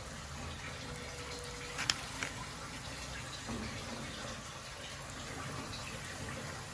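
Breaded fish rolls deep-frying in a pan of hot oil, a steady sizzle, with two sharp clicks about two seconds in.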